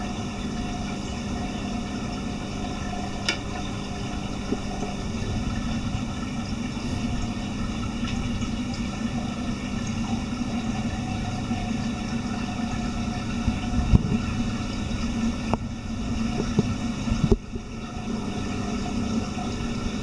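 Steady hum and rush of reef-aquarium pumps and circulating water, with a few brief knocks.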